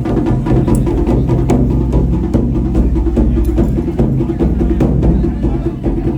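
Japanese taiko drums played live: a fast, dense run of sharp stick strikes over a deep, steady booming low end.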